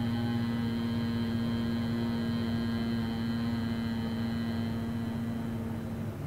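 A man's voice holding the closing "mmm" of an Om chant: one steady low hum with the lips closed, which stops near the end.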